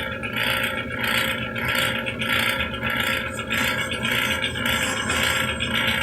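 Atlas metal lathe running, its drive and gears clattering in a steady rhythm that repeats about two to three times a second.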